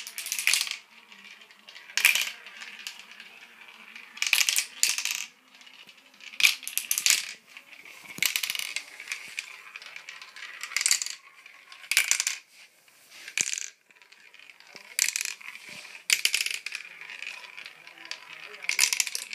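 Marbles rolling and clattering down a plastic marble run, dropping through its tubes, funnels and chutes. The clatter comes in about a dozen short rattling bursts at irregular intervals.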